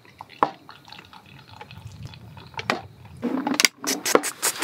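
Beer poured from a tall can into a glass, gurgling and splashing as the glass fills; the pouring gets louder and busier about three seconds in.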